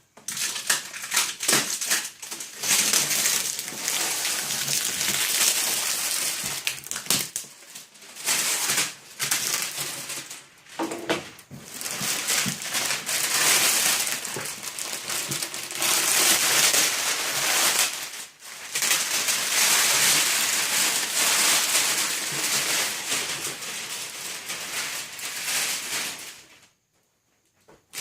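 Packaging rustling and crinkling as it is handled and pulled open, in long uneven stretches with brief pauses.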